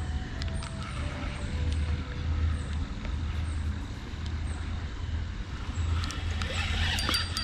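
Spinning reel cranked on a retrieve, over a steady low rumble.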